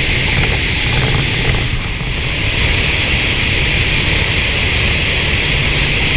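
Steady rush of wind over a camera mounted on the outside of a 2011 VW GTI MK6 cruising at road speed, with a low engine and tyre rumble underneath and no revving.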